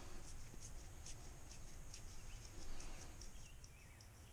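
Faint chirping of small birds: short high notes a few times a second and a few brief warbling phrases, over a low background hiss.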